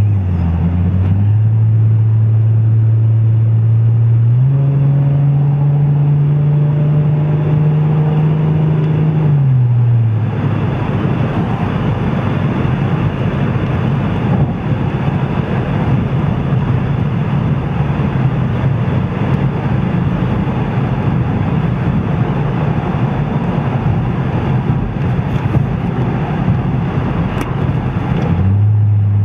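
2006 Ford Mustang's 4.0-litre V6 running through a Blue Oval Industries aftermarket exhaust while driving: a steady exhaust drone that steps up in pitch twice in the first few seconds, holds, then drops away about ten seconds in. A rougher rumble with road noise follows, and the steady drone comes back near the end.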